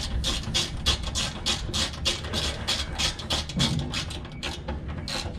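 A delivery van's engine idling, under a rapid, even run of light clicks, about five a second.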